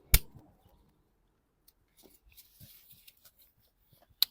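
Two sharp plastic clicks about four seconds apart as ignition coil connectors are pressed home on a VW Golf 1.4 petrol engine, with faint handling rustle between.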